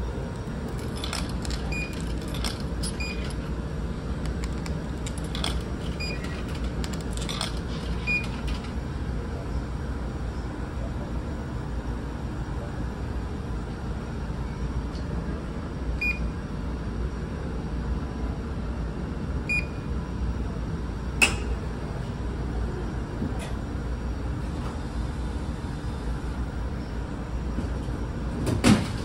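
Steady low drone of the ferry's engines, with short single beeps from a vending machine's keypad as buttons are pressed. A sharp click comes about two-thirds of the way in, and a heavier clunk near the end as the machine works.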